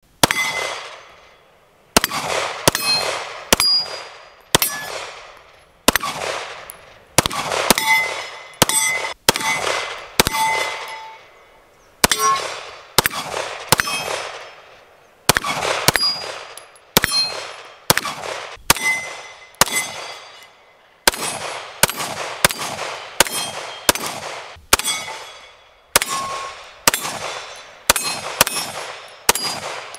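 Springfield Armory Echelon and XD-M Elite 9mm pistols firing a long string of single shots at steel targets. Each shot is followed by the ring of the struck steel plate. The pace is uneven, mostly half a second to a second apart, with a few short pauses.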